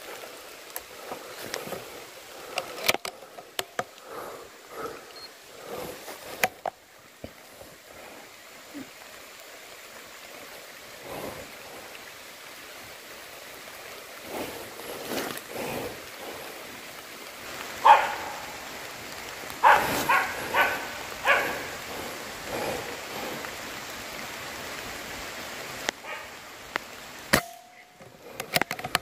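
Footsteps rustling and crackling through ferns and leaf litter. Later comes a run of short, loud animal calls, and near the end a single sharp click.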